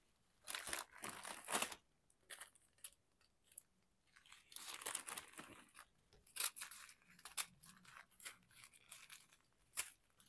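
Small plastic zip bags of diamond painting drills being handled and set down, crinkling and rustling in irregular bursts with short clicks between; the longest rustles come about half a second in and again around four to five seconds in.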